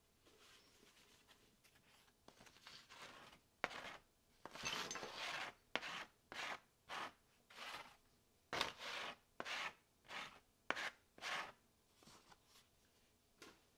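A sheet of paper being handled and rubbed against a board: a run of about a dozen short rustling scrapes, some starting with a sharp click.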